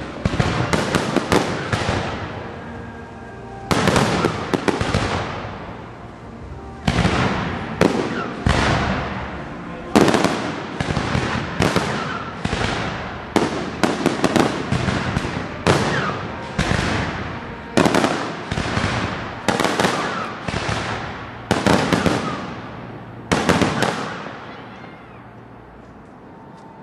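Aerial fireworks bursting in quick succession, each sharp bang trailing off into a fading crackle, sometimes several in a rapid cluster. The barrage stops shortly before the end.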